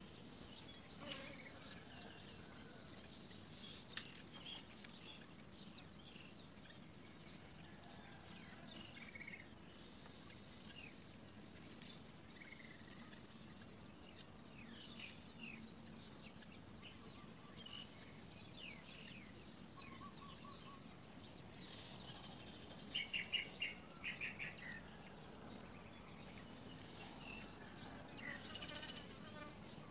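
Birds chirping faintly with short scattered calls, and a quick run of louder repeated chirps about two-thirds of the way through. A single sharp click sounds about four seconds in.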